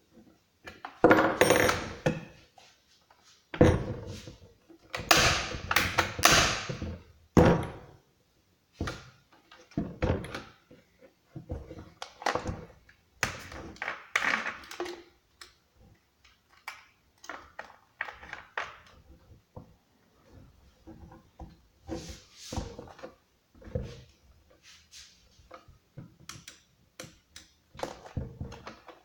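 Unpacking and handling a new chainsaw and its packaging: irregular knocks, clatter and rustling, heaviest in the first eight seconds.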